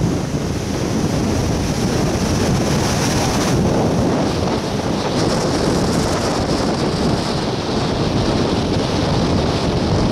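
Strong wind buffeting the microphone over the steady rush of surf breaking on the beach.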